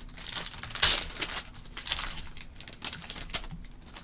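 A foil trading-card pack being torn open and the cards slid out and handled: a quick run of crinkling, tearing rustles and small clicks, loudest about a second in.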